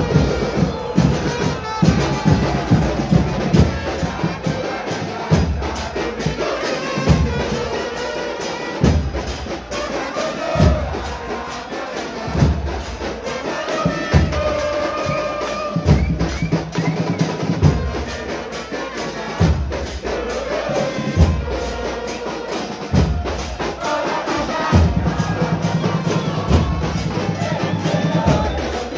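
Football supporters singing a terrace chant together, backed by a stand band of bass drums pounding out the beat and trumpets playing the tune.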